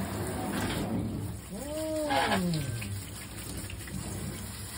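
Water from a hand-held shower head splashing over a cat in a stainless steel sink, with the cat, a mixed-breed ginger longhair, giving one long meow about two seconds in, its pitch rising then falling.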